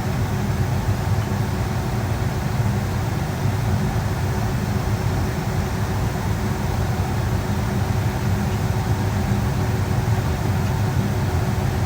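Steady cabin noise inside a Boeing 757-200 in flight: the low drone of its twin turbofan engines and the rush of air over the fuselage, with a faint steady hum.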